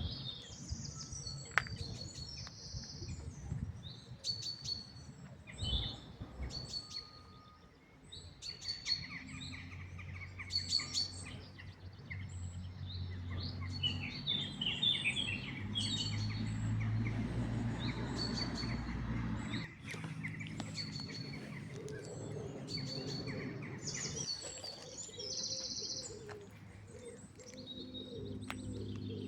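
Birds chirping and calling, many short high chirps repeated over and over. A low steady rumble sits underneath from about a quarter of the way in until about two-thirds through, then drops away suddenly.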